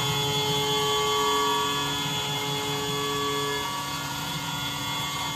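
CNC milling machine cutting an aluminium part with an end mill under flood coolant. A steady whine of several held tones from the spindle and cut runs over the hiss of the coolant spray, and one of the tones drops out a little past halfway.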